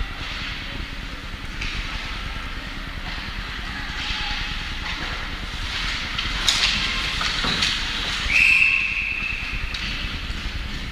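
Steady background noise of a team game in progress, with a sharp knock about six and a half seconds in, then a short steady whistle blast a little after eight seconds, typical of a referee stopping play.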